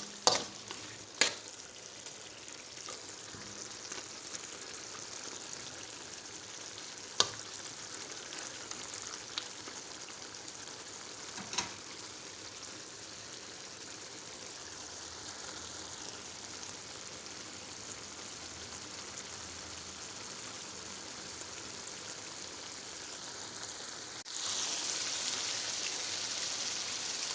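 Marinated chicken sizzling in a pan as its juices cook off and the oil begins to separate, with a few sharp clicks of a spoon against the pan. The sizzle turns suddenly louder and brighter about three seconds before the end.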